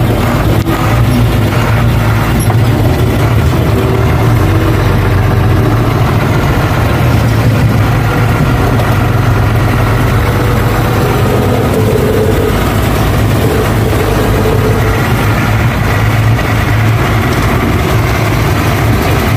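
Ashok Leyland truck's diesel engine running steadily as the truck drives along, heard from inside the cab.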